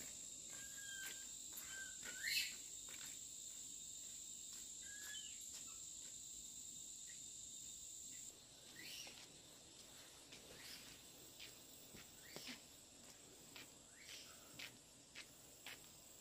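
Faint outdoor rural ambience: a steady high insect trill that cuts off about halfway through, a few short bird chirps early on, and scattered light clicks in the second half.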